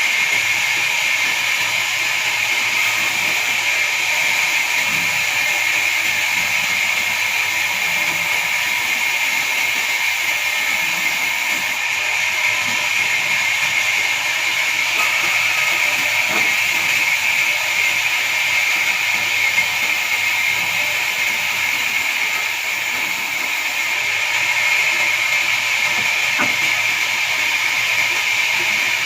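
Horizontal band sawmill cutting a pine log: a steady, high hissing whine with a few faint knocks.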